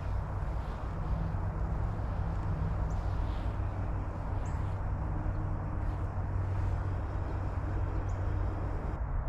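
Outdoor background: a steady low rumble, with a few faint, short bird chirps scattered through it.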